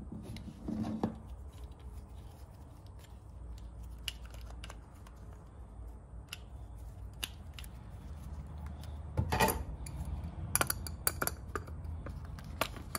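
Plastic carbonation caps being screwed by hand onto a plastic fermenter lid over thread tape: scattered light clicks and taps of plastic, with a denser run of sharper clicks about nine to eleven seconds in as a metal adjustable spanner goes onto a cap.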